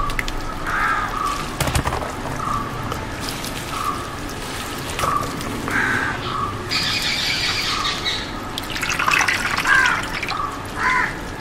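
Water sloshing and dripping as hands scoop, squeeze and drop handfuls of washed clam meat in a basin and move it to a plastic colander. A crow caws a few times near the end.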